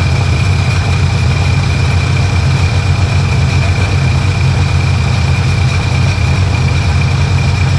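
2005 Sea-Doo GTX engine running steadily out of the water, with a thin steady whine above the engine note. It is running to heat up and burn off water and oil after water got into the engine.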